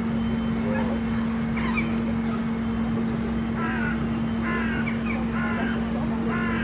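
Crow cawing: a series of short, harsh caws, most of them close together in the second half, over a steady low hum.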